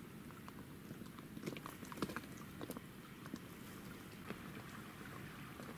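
Small waves lapping against an inflatable PVC boat's tube: faint, irregular little patters and splashes, a few louder about two seconds in, over a low rumble of wind.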